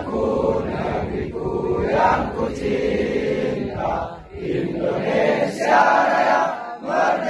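A large crowd singing together in unison, in sung phrases with short breaks between them about four seconds in and near the end.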